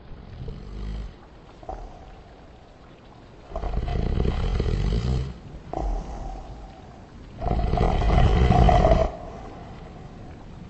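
A person snoring, slowed down and heavy with reverb. The snores are long, deep and rasping, with two loud ones of about two seconds each in the middle and quieter breaths between them.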